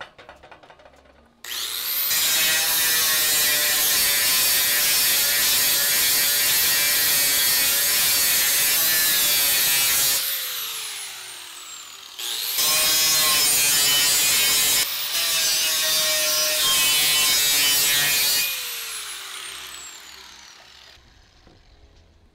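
Small corded angle grinder, used as a sander, spinning up and running loud under load as it dresses the edge of a piece of aluminium angle to fit, then winding down with falling pitch. It is started again for a second run of about six seconds, with a brief dip near the middle, and winds down again.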